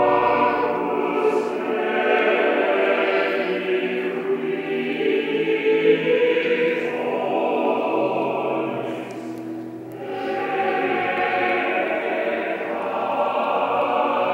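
Pipe organ playing sustained, full chords that swell and shift, heard live in a cathedral. The sound thins briefly about ten seconds in, then builds again.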